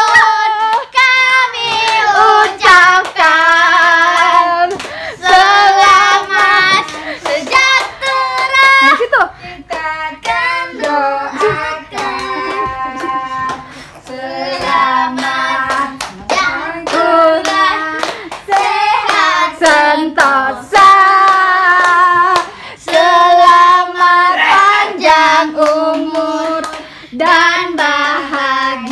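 A small group, children's voices loudest, singing a birthday song together and clapping along to it.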